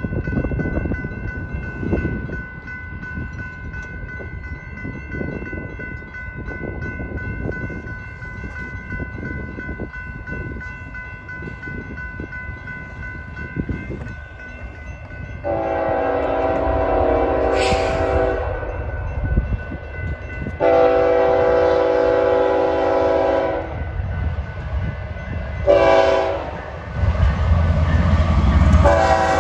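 Railroad crossing bell ringing as the grade-crossing signals activate. A BNSF freight locomotive's air horn then sounds the grade-crossing pattern: two long blasts, a short one, and a final long one. The locomotive's diesel rumble grows louder under the last blast as it nears the crossing.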